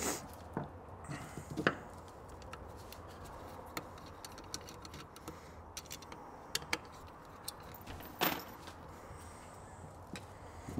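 Scattered light clicks and taps of small metal carburetor parts and hand tools being handled during a Rochester Quadrajet teardown, with a few louder knocks near the start and another about eight seconds in.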